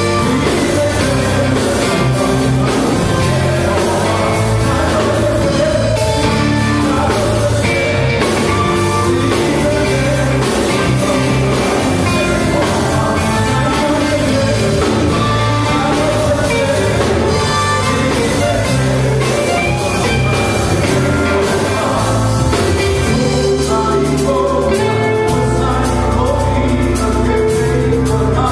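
Live amplified band music: an electric guitar through a Marshall amplifier and an electric bass playing a worship song medley, loud and continuous.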